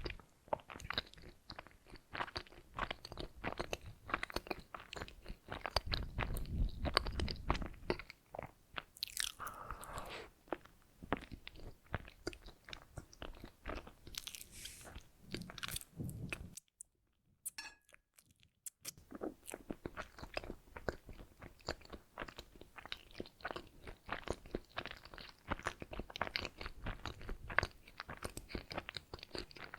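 Close-miked chewing and biting of doughnuts: a steady run of small moist mouth clicks and crunches, with a pause of about two seconds a little past the middle.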